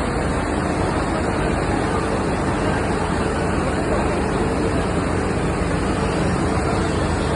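Floodwater rushing steadily over a hill road in heavy rain, an even, unbroken noise.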